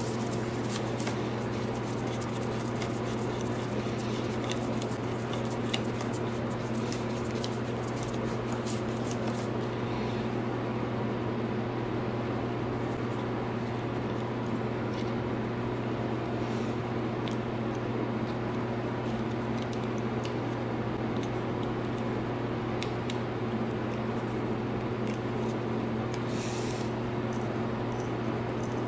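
Light clicks and scrapes of a screwdriver undoing the screws of a dirt bike's plastic throttle housing and the housing being pulled apart, busiest in the first half, over a steady low hum.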